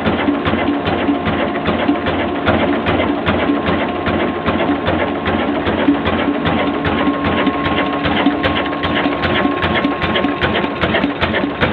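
Old slow-speed 'kala' stationary diesel engine (22 HP, rated 300 rpm) running steadily: an even, fast mechanical clatter of valve gear and fuel pump with a regular beat.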